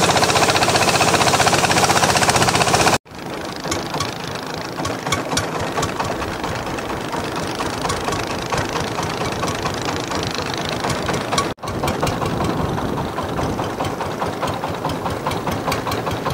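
Motorboat engine of a wooden long-tail boat running on the water with a rapid, even pulse. It is loud for the first three seconds, then cuts out abruptly and carries on quieter, with another brief break about eleven seconds in.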